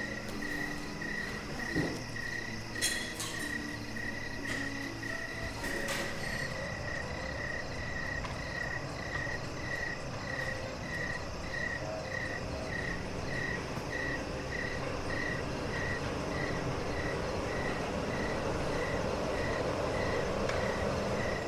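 Night-time outdoor ambience: a single creature's short chirp repeating steadily, about one and a half times a second, over a steady background hum, with a few clicks in the first seconds and a broad rumble swelling near the end.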